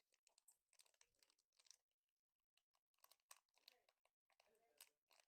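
Near silence with faint, irregular rustling and small clicks from handling baseball card packs and cards.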